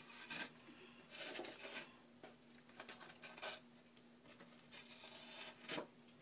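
Faint rustling and swishing of paper pages and thread as a needle and thread are pulled through the stitching holes of a hand-bound mini book, in several short strokes.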